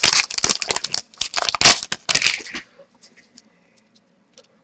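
Hockey card pack wrapper torn open and crinkled in a fast, dense crackle for about two and a half seconds, then only a few faint ticks.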